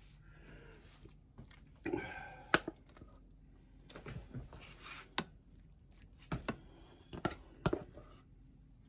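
A wooden spoon scooping soft mashed potatoes from a saucepan and spreading them over the filling in a glass baking dish: wet squelching and plopping, with several sharp knocks of the spoon against the dishes.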